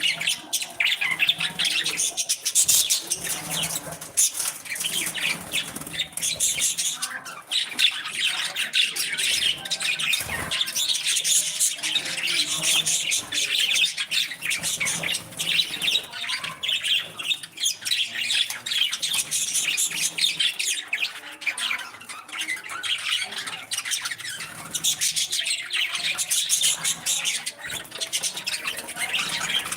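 Several budgerigars chattering continuously in their cage: a dense stream of quick, high chirps, warbles and squawks.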